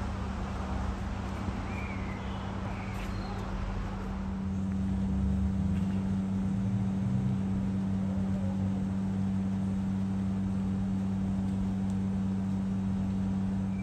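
A steady mechanical hum, like a running engine or machine, growing louder about four seconds in.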